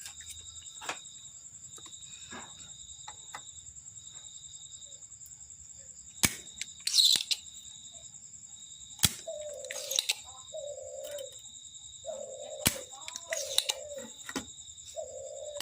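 Background birds and insects: a steady high-pitched insect trill throughout, a few bird chirps, and from about nine seconds in a dove cooing in repeated short low notes. A few sharp clicks of tools being handled cut through.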